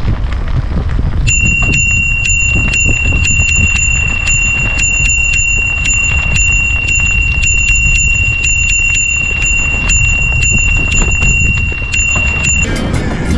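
Bicycle squealing with a steady high-pitched tone and ticking about three or four times a second as it rolls along the trail, over wind rumble on the microphone. The squeal and ticking start about a second in and stop shortly before the end.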